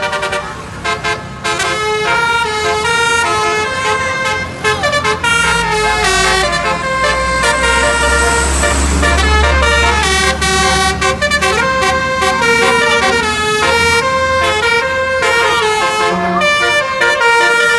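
Bus 'basuri' (telolet) musical air horn playing a fast melody of held notes, over a low engine rumble that swells in the middle and then fades.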